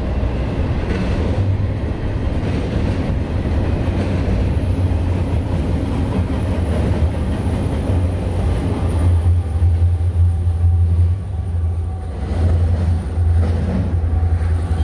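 Freight train passing, a loud steady rumble.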